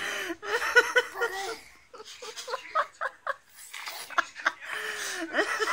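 Giggling laughter in short, high-pitched bursts, breaking off in the middle and picking up again near the end.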